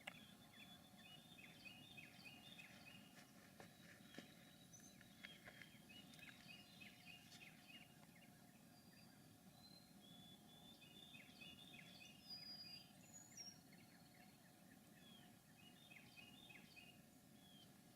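Faint wild birdsong: runs of short, high, falling chirps repeating in several bursts over a quiet outdoor background.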